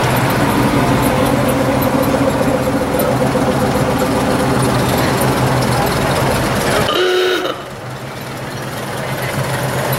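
Classic cars' engines running as they crawl past at parade speed, a steady low drone. About seven seconds in there is a short horn-like toot, then the engine sound dips for a moment and builds back up.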